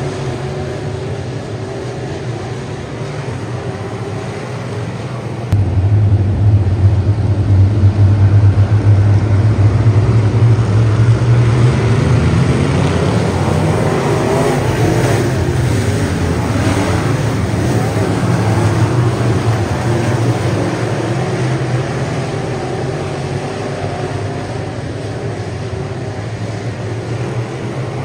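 Pack of dirt-track race cars running laps on the oval, their engines making a continuous loud drone. The sound jumps sharply louder about five seconds in as the cars come past, then slowly fades.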